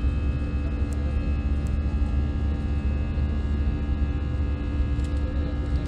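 Airbus A320 jet engines heard from inside the cabin during the climb after take-off: a steady low hum with steady whining tones over it.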